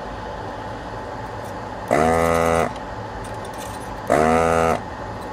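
Hakko desoldering gun's vacuum pump buzzing in two short bursts, about two seconds apart, each as the trigger sucks molten solder off a joint, over a steady low hum.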